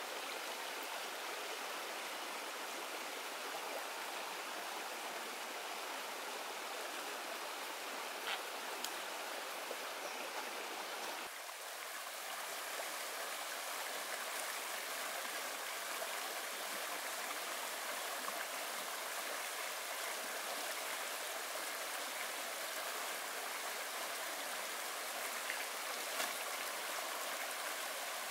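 Shallow rocky stream running steadily, an even rush of water with a few faint clicks.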